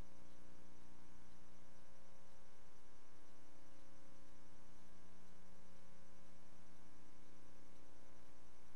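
Steady electrical hum with hiss, made of several unchanging tones with no other sound.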